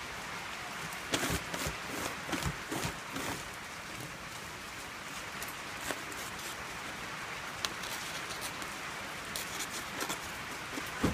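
Crinkling and rustling of a sheet of shiny plastic film as it is pressed and smoothed by hand over a firework cake's tubes, with scattered crackles over a steady hiss; the crackling is busiest in the first few seconds and again near the end.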